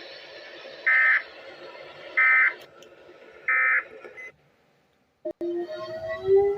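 Emergency Alert System end-of-message data bursts: three short, harsh digital tone bursts about 1.3 s apart over faint hiss, marking the close of the tornado warning message. After a brief gap, a click and a slowly rising tone start near the end.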